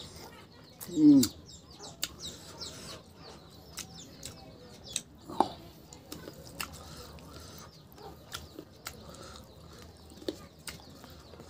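Close-miked eating sounds: wet chewing and lip-smacking clicks as rice and chicken curry are eaten by hand. About a second in there is one short, loud sound that falls in pitch.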